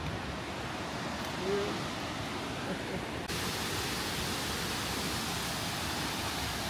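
Steady rushing of a large waterfall, a full even roar of falling water that turns abruptly brighter and hissier about three seconds in.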